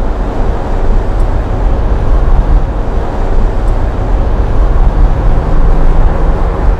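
Audi S7 Sportback's twin-turbo 4.0-litre V8 running steadily as the car is driven, a deep engine drone that holds an even level with no revving up or down.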